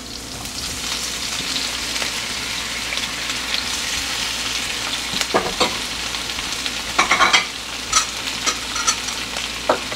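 Chopped tomato, green bell pepper and celery sizzling in hot olive oil with onion in a frying pan, the steady sizzle building as they land. In the second half come several sharp knocks and clicks.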